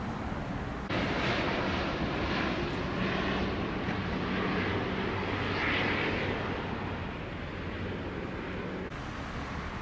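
A jet airliner passing, a steady engine noise that comes up abruptly about a second in and falls back near the end.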